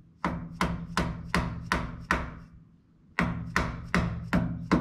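Mallet tapping a chrome exhaust tip onto the end of a stainless steel exhaust pipe: six sharp blows about three a second, a pause of about a second, then five more, driving the tip on until its inside locking tabs press into place.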